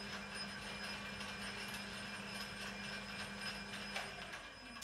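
Homemade metal lathe running: the belt-driven motor hums steadily and the South Bend change-gear train turns in mesh. About four seconds in, the stop button clicks and the machine begins to wind down.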